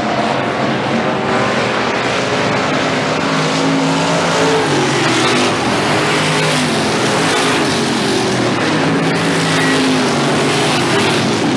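Pure stock race cars running on a dirt oval: several engines at once, their pitch rising and falling as the cars accelerate and lift around the track.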